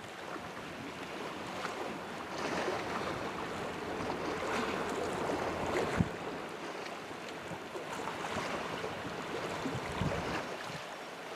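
Steady rush of wind and water, with a few low gusts buffeting the microphone, about six seconds in and again near ten seconds.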